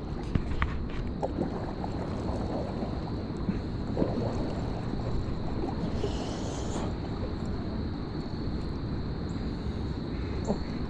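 Steady rushing of a flowing river mixed with wind on the phone's microphone, with a few faint clicks from the phone being handled.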